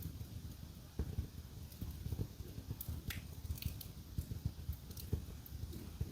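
Wood fire crackling in a fireplace: a steady scatter of soft, irregular pops, with a few sharp snaps about three and five seconds in.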